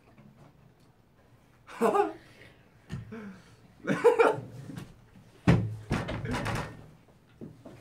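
Two men laughing in short bursts, about two seconds in, about four seconds in and again more loudly from about five and a half seconds.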